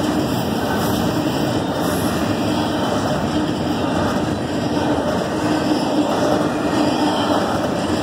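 CSX double-stack intermodal train rolling past, its wheels on the rails making a steady, loud rumble.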